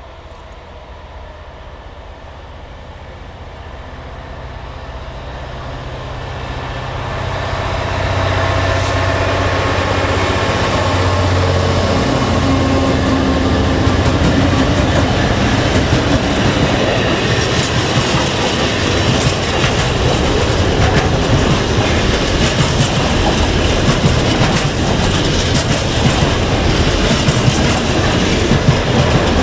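Class 66 diesel-electric locomotives, their EMD two-stroke V12 engines running, approach and pass, growing louder over the first eight seconds with a strong low engine note as they go by. Then the loaded container wagons follow with a steady rush of wheels and rapid clickety-clack over the rail joints.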